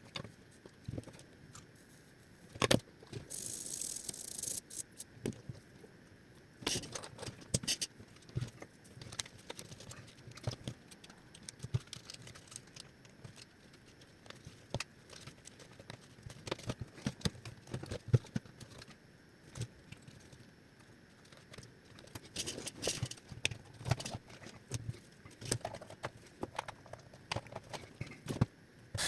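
Scattered clicks, knocks and rattles of plastic vacuum-head parts and small tools being handled during the repair of a Philips cordless stick vacuum's brush head, with a short hiss about three seconds in.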